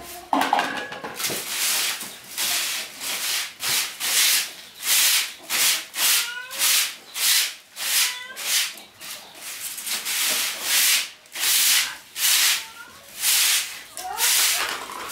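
Rhythmic rubbing strokes by hand on a rough, dusty surface, about two a second, each a short hiss.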